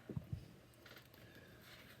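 Two soft low thumps close together as Lego Technic parts are handled, followed by faint light rustling.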